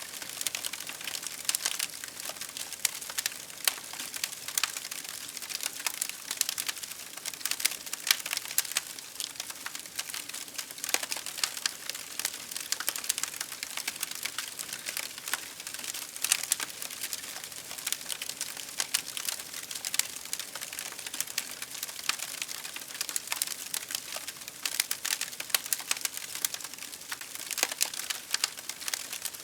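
Wood fire crackling steadily, with dense, irregular pops and snaps over a soft hiss.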